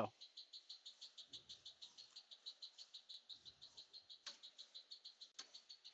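Marlen DuraKut 6000 2D dicer running, heard faintly as a rapid, even, high-pitched ticking at about ten a second, with two soft knocks near the end as chicken breasts are dropped onto its infeed belt.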